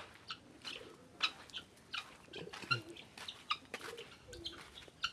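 Helmeted guinea fowl giving short, scattered chirping calls, a few each second.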